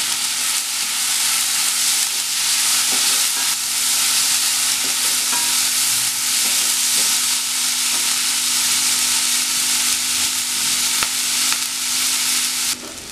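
Chopped onion and tomato sizzling in hot oil in a pan while being stirred with a wooden spatula, with a few light scrapes and taps of the spatula and a faint steady hum underneath. The sizzle cuts off suddenly near the end.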